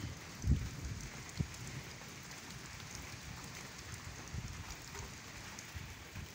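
Light rain falling with a steady fine hiss, and wind buffeting the microphone in low gusts, the strongest about half a second in and again near a second and a half.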